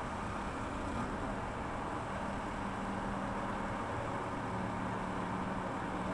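Backhoe loader's diesel engine running steadily while digging, a low hum that drops out briefly about two-thirds of the way through and comes back.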